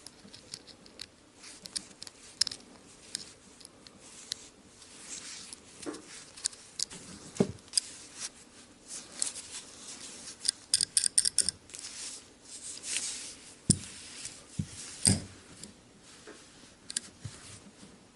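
Small metallic clicks and taps of a T8 Torx driver and tiny screws being worked out of a folding knife's handle, with a quick run of about eight clicks a little after ten seconds in.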